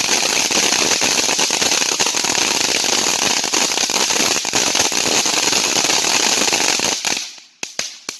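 Consumer firework burning on the ground with a loud, dense crackling hiss. It dies out about seven seconds in, followed by a few last separate pops.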